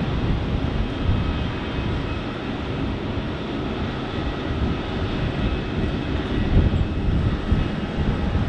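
Boeing 777-300ER's GE90 turbofan engines at taxi power: a steady jet hum with a faint high whine. Heavy, uneven low rumble of wind on the microphone runs over it.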